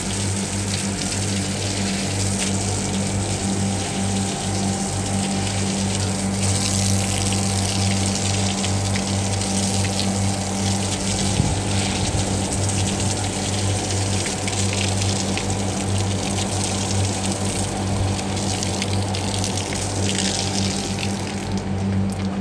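Water spraying and splashing onto a wet concrete roof from a hose, over a steady low electric motor hum.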